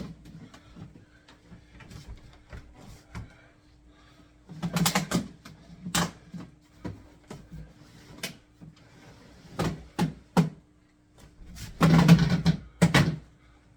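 Clicks, knocks and clatter of a portable air conditioner being handled and its buttons pressed, with two louder bursts of clatter about five and twelve seconds in. A faint steady hum is heard under them.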